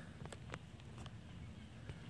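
Woodpecker pecking on a metal railing: about six sharp, irregularly spaced taps.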